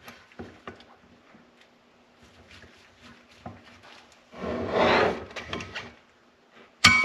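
Snowmobile clutch parts being worked apart by hand: light clicks and knocks, then a longer scraping slide about four and a half seconds in as a part is eased out, and a sharp metallic clink that rings briefly near the end.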